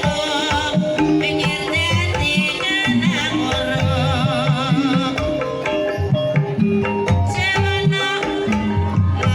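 Javanese gamelan music accompanying an ebeg (kuda lumping) dance: hand-played kendang drums keep a driving rhythm under held, ringing metallophone notes, with a high wavering melody line over the top.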